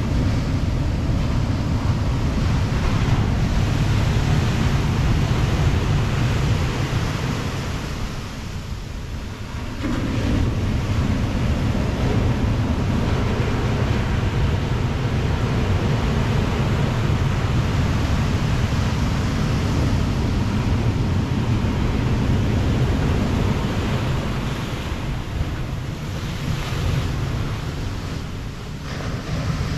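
Pacific surf breaking and washing up the sand in a steady rush, with a heavy low rumble of wind on the microphone. The sound eases for a couple of seconds about eight seconds in, then the rumble comes back suddenly, and eases again near the end.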